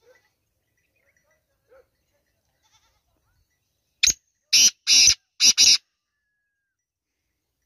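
Male black francolin calling about four seconds in: a short first note, then three longer harsh, grating notes, all within under two seconds.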